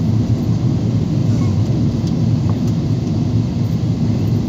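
Steady low rumble of engine and airflow noise inside the cabin of a Boeing 777-300ER descending on approach to land.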